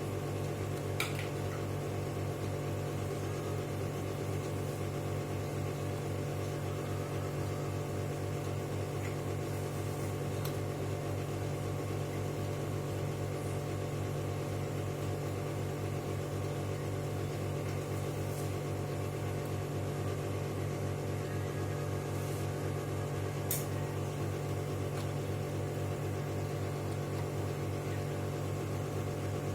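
Steady low electrical hum, unchanging throughout, with a few faint clicks.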